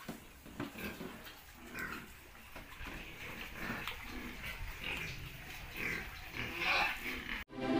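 Pigs in a pen feeding, with irregular short calls and some higher-pitched squeals among snuffling and clicks. Music cuts in abruptly just before the end.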